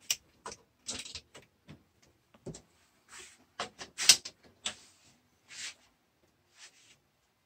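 Die-cast Hot Wheels cars and the plastic starting gate of a multi-lane Hot Wheels race track clicking and clattering as cars are set into the lanes. The clicks are short, sharp and irregular, and the loudest comes about four seconds in.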